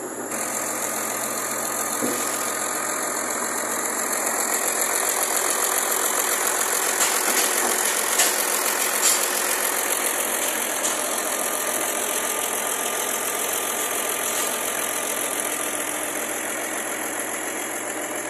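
Mitsubishi Fuso truck diesel engine, used to power a sawmill, running steadily, with a few sharp clicks about halfway through.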